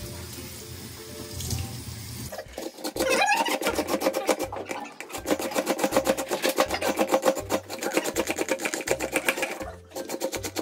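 A kitchen tap runs for about two seconds as a green papaya is rinsed under it, then the papaya is rasped quickly up and down a metal box grater in rapid, even strokes. Background music with a steady beat plays throughout.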